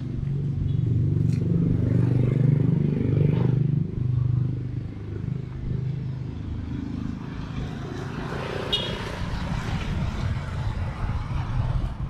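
Motorcycle engine running, louder for the first few seconds and then steadier and quieter.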